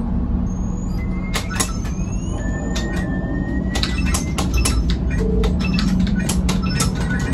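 Millennium Falcon: Smugglers Run simulator's cockpit sound effects: a steady low engine rumble and hum under many sharp bangs and zaps, which come thicker about halfway through, with a few short rising tones early in the flight.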